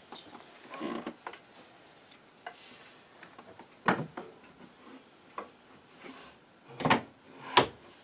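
Wooden cherry curtain rod and finials knocking and clunking against wooden wall brackets as the rod is handled and set in place, with sheer curtain fabric rubbing. One sharp knock comes about four seconds in and two more near the end.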